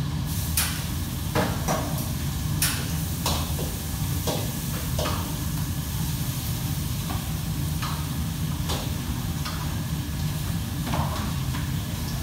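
Food frying in a metal pan on a strong burner: steady sizzling over a low rumble, with irregular sharp metal clanks every second or so from the utensil striking the pan.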